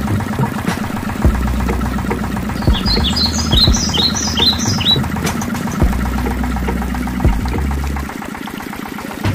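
Small diesel-style water-pump engine running steadily with a low rumble that drops away about a second before the end. In the middle a bird gives a quick series of about eight short descending chirps.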